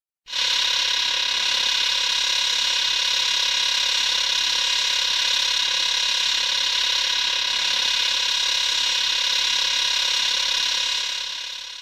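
Showa-era King Ghidorah monster sound effect: a steady, high, buzzing tone with many overtones that starts abruptly and holds for about eleven seconds, then fades out near the end.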